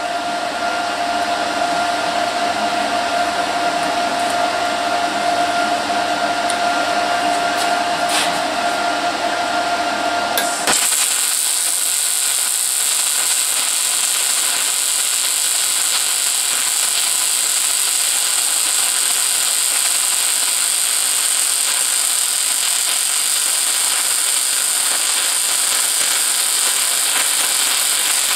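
A steady machine hum with a whine. About ten seconds in it gives way abruptly to a MIG welder's arc, hissing steadily as a bead is laid on a steel frame.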